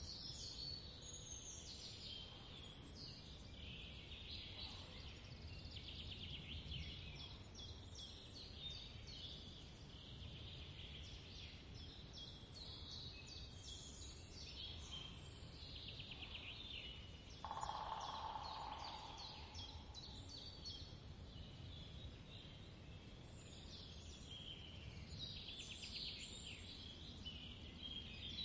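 Small birds chirping and twittering in quick repeated trills, faint, over a low steady background hum. About 17 seconds in, a louder rushing sound lasts about two seconds.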